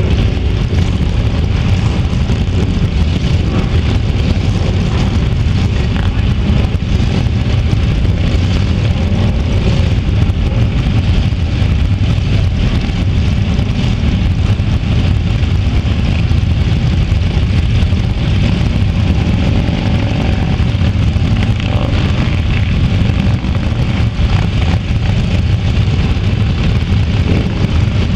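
Dozens of motorcycles, many of them Harley-Davidson V-twin cruisers, riding slowly past together in a procession: a dense, steady, low engine sound.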